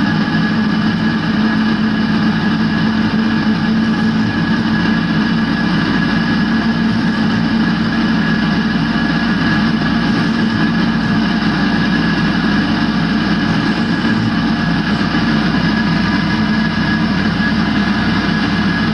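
Valve refacing machine running steadily, its grinding wheel recutting the face of a Triumph Bonneville exhaust valve, a steady hum with a high whine over it.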